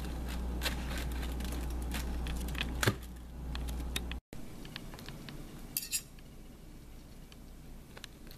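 Scattered light clicks over a steady low hum. After a break, a fork and knife click and scrape against a black plastic frozen-dinner tray as baked chicken is cut, with one sharper clink near the middle.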